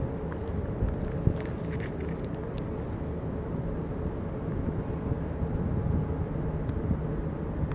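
Steady low rumble of a ship's engine with a faint constant hum.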